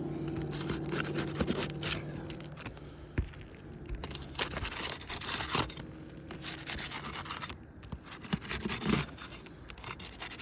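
Flat bar scraping and prying under asphalt roof shingles, popping them up in a run of irregular scrapes and tearing crackles. A low steady hum sounds underneath for the first couple of seconds.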